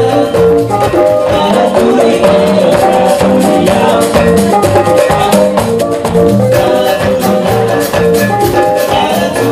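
Live salsa band playing an upbeat number, with upright bass, congas and drums keeping a steady rhythm under sustained melody notes.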